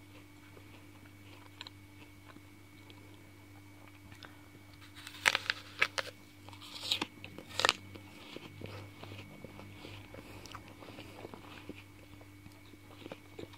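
Someone biting into and chewing a crisp apple: four loud, sharp crunches come close together about five to eight seconds in, with quieter chewing around them. A faint steady hum runs underneath.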